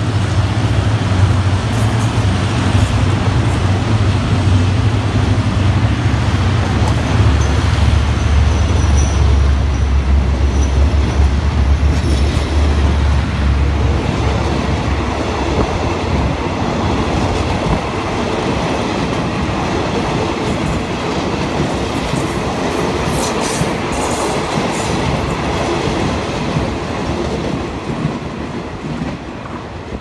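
Passenger carriages of a diesel-hauled Thai train rolling past close by on the rails. A low drone is strong through roughly the first half and then drops away. The train recedes and the sound fades near the end.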